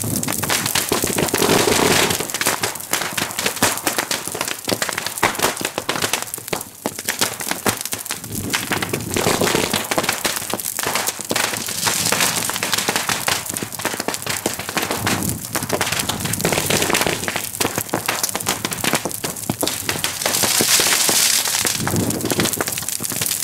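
Firecrackers popping densely and without a break in the blaze of a burning wooden royal boat.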